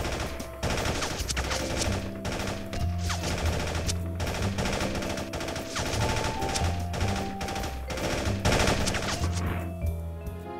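Rapid bursts of video-game gunfire over background music with a bass line. The gunfire starts about a second in and stops shortly before the end.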